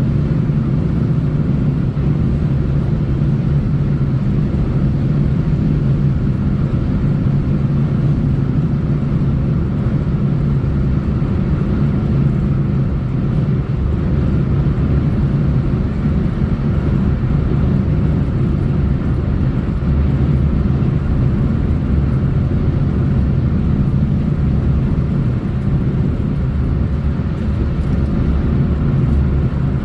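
A car driving on a road: a steady, unbroken low rumble of tyres and engine.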